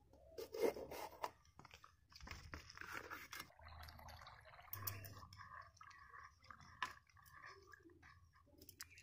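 Faint wet crunching and splashing as washed cauliflower florets are lifted by hand out of water in a steel bowl. About three and a half seconds in, water starts running into a bowl of shelled green peas, which are swished around by hand.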